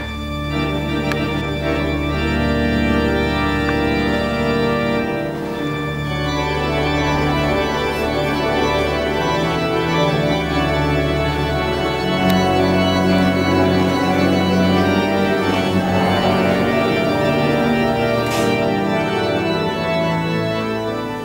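Organ music: slow, sustained chords, each held for several seconds before moving to the next.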